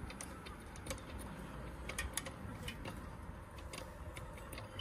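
Irregular sharp clicks, about a dozen in under five seconds, as a Coleman gas-cartridge lantern is being lit.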